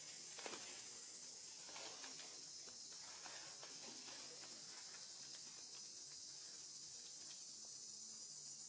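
A steady high insect chorus, with light crackling of dry leaves in the first few seconds as a monkey picks through the leaf litter with its hands.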